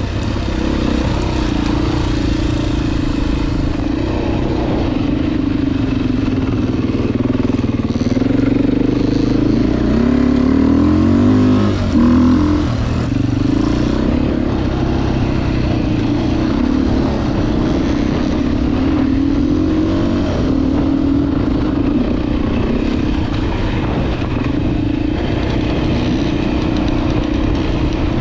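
Dirt bike engine running while riding, its pitch holding steady for long stretches. The pitch rises and falls with the throttle about ten to twelve seconds in.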